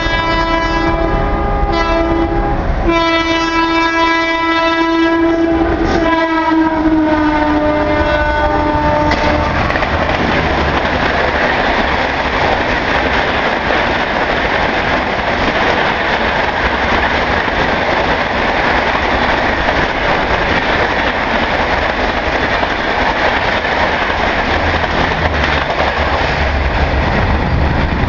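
WAP-4 electric locomotive's horn sounding in several long blasts as it approaches at speed, its pitch falling as it passes, about nine seconds in. Then comes the steady rush and clatter of the Rajdhani Express coaches going by at speed.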